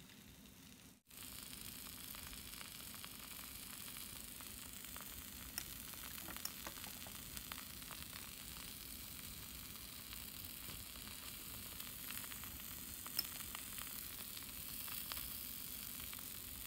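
Pancake batter frying in a miniature copper frying pan: a soft, steady sizzle and crackle, with a few sharp clicks.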